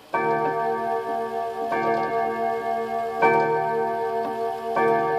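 Gustav Becker chime wall clock striking the hour: four slow, evenly spaced strokes about a second and a half apart, each ringing on into the next, with the movement's tick underneath.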